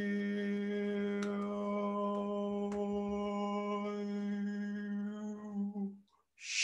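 A man's voice holding one long, steady, wordless note, a meditative toning sound, which stops about six seconds in. A short sharp breath follows near the end.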